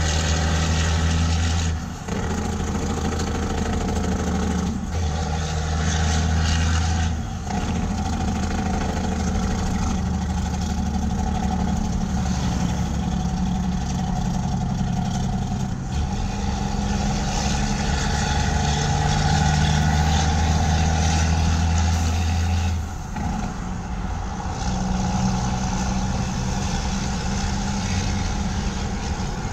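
Straight-piped Caterpillar C10 diesel of a Peterbilt 357 roll-off truck pulling down the highway, heard from inside a following car over road noise. Its low, steady exhaust drone breaks off and picks up again four times, about 2, 5, 7 and 23 seconds in.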